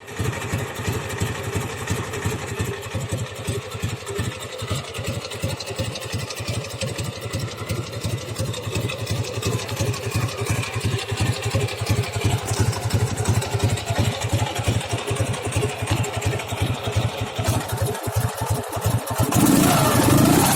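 Dnepr motorcycle's flat-twin engine running at idle with a rapid, steady pulsing beat. About a second before the end a louder sound takes over.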